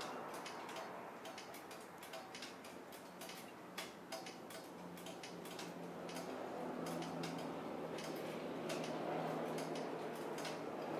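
Scattered, irregular light ticks and clicks over a faint steady hum.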